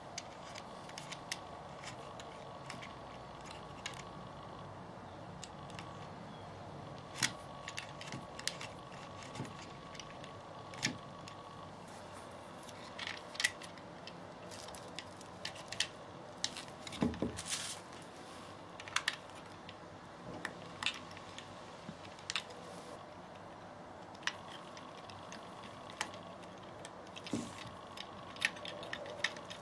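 Small metal clock-kit parts being handled and fitted by hand: scattered light clicks and taps as the brass washer, nut and metal hands go onto the clock movement's shaft, over a faint steady hum.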